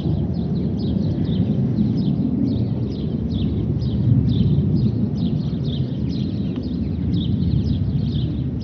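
Low, steady rumble of two Tornado fighter jets in the distance, swelling about four seconds in, with small birds chirping rapidly throughout.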